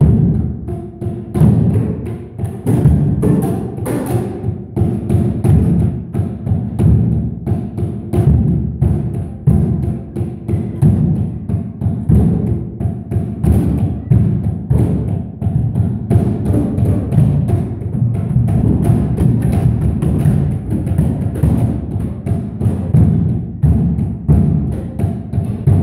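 Batucada-style group drumming on large homemade drums of stacked tyres, struck with plastic tubes. Several players beat a steady, dense rhythm of low thuds with many strikes a second.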